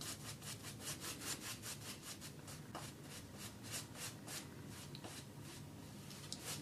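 Boar-bristle shaving brush scrubbing shaving-soap lather over a shaved scalp: a faint, quick swishing, about five or six strokes a second, as the lather is built up on the head.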